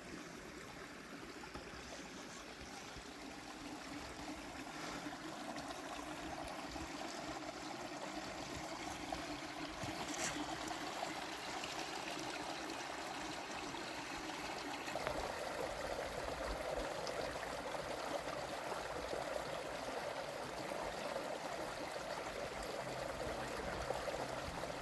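Water running steadily along a dug trench from a spring, a small stream-like flow that grows a little louder about two-thirds of the way through.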